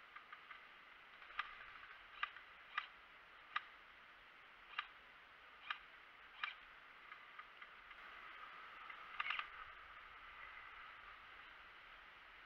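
Single sharp airsoft shots ticking at irregular intervals, about seven in five seconds, then a quick cluster of several about nine seconds in.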